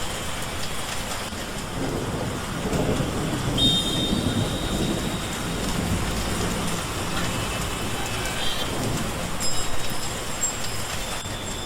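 Heavy rain falling steadily on a road, with low rumbles swelling and fading several times underneath.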